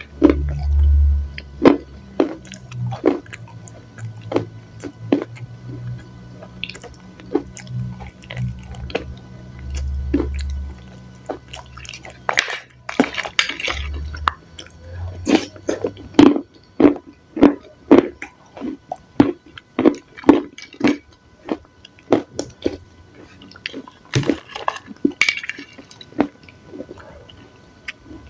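Close-miked eating of a salad: chewing with many quick crunches and wet squishing mouth sounds. There are low thuds through the first ten seconds or so, and a couple of longer, noisier wet bursts about halfway through and near the end.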